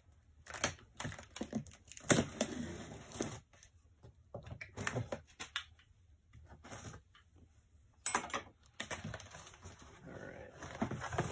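Packing tape on a cardboard box being slit with a knife, with scattered clicks and scraping, then the cardboard flaps being pulled open with louder rustling later on.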